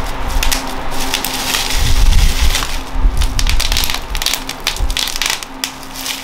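Bubble wrap and plastic packaging being pulled and crumpled by hand, a dense, irregular crinkling and crackling.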